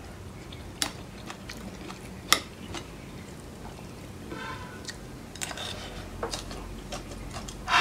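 Metal spoon clicking against a ceramic plate while scooping up rice and stir-fried chicken, with a few sharp clicks spaced a second or more apart.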